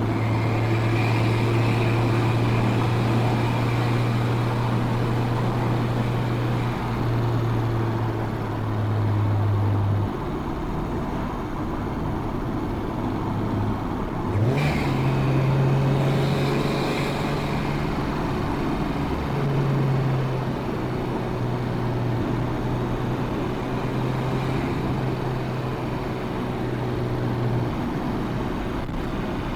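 Nissan Skyline R34 GT-T's turbocharged 2.5-litre straight-six, with a full exhaust system, running under way at fairly steady revs. About halfway through there is a short sharp sound, and the engine note jumps higher.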